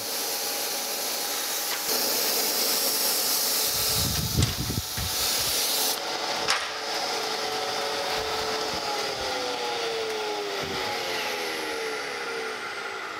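Surface grinder wheel grinding the straight edge on a finishing pass with a steady hiss, and a few dull thumps about four to five seconds in. About six seconds in the hiss drops away, and the spindle then winds down with a falling whine as the grinding is finished.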